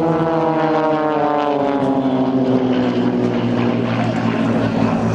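Aerobatic propeller planes with six-cylinder Lycoming engines flying past in formation at speed. The engine and propeller note falls steadily in pitch as they go by, then holds steady.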